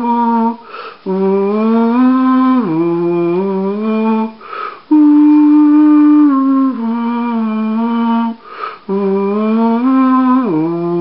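A single voice humming a slow melody without words, in long phrases of held notes that step up and down, with a breath drawn between phrases about every three and a half seconds.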